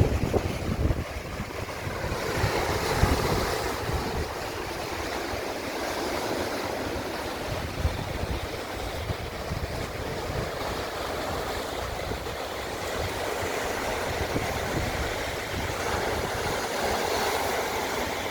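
Wind gusting on the microphone over the steady rush of sea waves breaking on the shore, swelling a few seconds in and again near the end.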